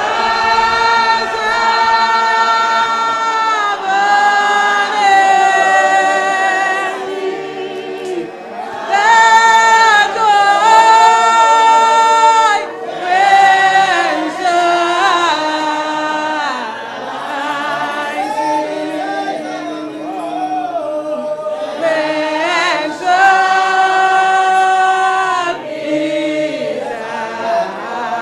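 Unaccompanied congregational hymn singing, a woman's voice leading over a microphone with other voices joining, in long held notes that slide from one pitch to the next.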